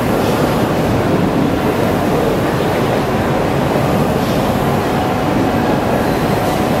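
Loud, steady din of a busy exhibition hall, machinery and crowd noise blended into an even rumble, with a large-format inkjet printer running in the mix.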